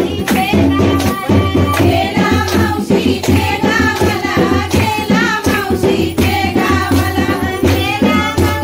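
Women singing a Marathi phera song, the circling-dance song, with regular hand clapping keeping the beat.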